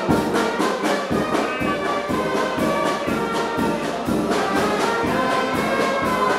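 Brass-led orchestral music with a steady beat.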